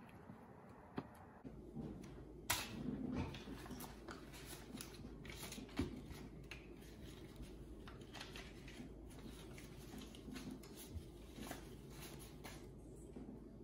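Paper banknotes rustling and flicking as a stack of dollar bills is counted by hand: many short, irregular crisp rustles and clicks, a few louder than the rest.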